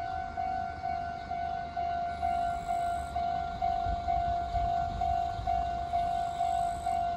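Railway level-crossing warning bell ringing steadily, about two clangs a second, each clang fading before the next, over a low rumble.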